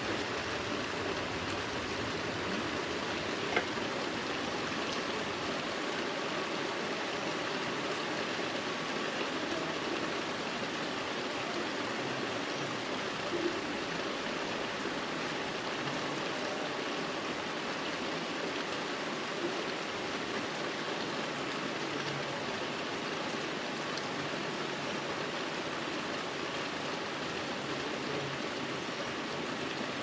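Steady summer rain falling, an even hiss, with a sharp tick of a drop or impact about three and a half seconds in.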